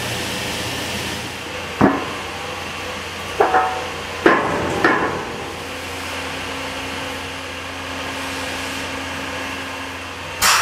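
Steady hum and hiss of towel factory machinery, broken by sharp metallic knocks that ring briefly: one about two seconds in, a quick pair a second and a half later, two more soon after, and a louder clank near the end.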